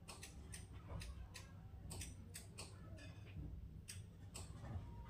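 Faint, irregular short clicks and ticks, a few a second, over a low steady hum.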